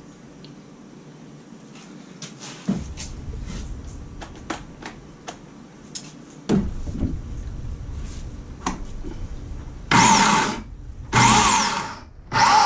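Clicks and knocks of the cord and saw being handled, then a Bauer 16-inch 14.5-amp electric chainsaw's motor and chain run in two short bursts of about a second each, the whine winding down after each release, and start up again just before the end.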